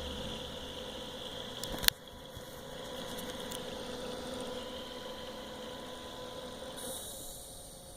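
Zalman computer fan running with a steady whir and a faint steady tone. A single sharp click about two seconds in, after which the fan sound is quieter.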